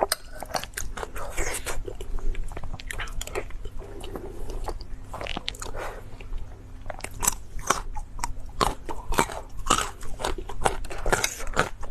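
Close-miked chewing and biting of food, with many irregular crisp crunches and wet mouth clicks.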